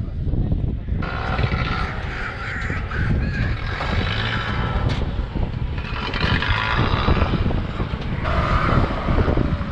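A donkey braying, a series of drawn-out calls one after another, over a steady low rumble.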